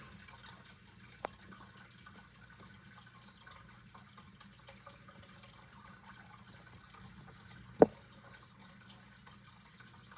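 Faint room tone with a low steady hum and scattered soft ticks. One small click about a second in and a sharper, louder click near the end.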